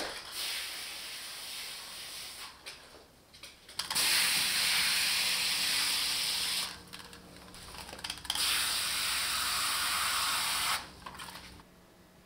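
Garden hose spray nozzle spraying water onto the soil of terracotta plant pots, a steady hiss that comes in three bursts, the last two louder.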